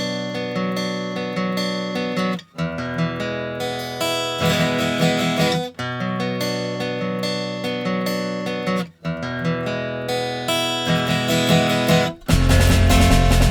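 Background music led by strummed acoustic guitar, broken by short pauses every few seconds; about twelve seconds in it turns suddenly louder and fuller.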